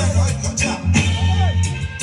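Music played loud through a sound system, with heavy bass and a steady beat.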